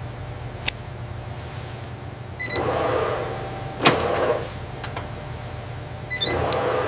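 Rotating tanning drums running with a steady low hum. Twice, a short high beep is followed by a swell of swishing, sloshing noise lasting about two seconds, with a few sharp clicks in between.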